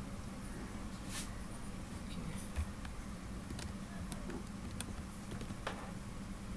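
A few scattered computer keyboard key clicks, irregular and sparse, as a password is typed and deleted, over a steady low electrical hum.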